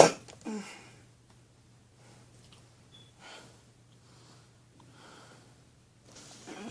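A man's loud sniff right at the start, then quiet, uneven breathing. He is holding back tears.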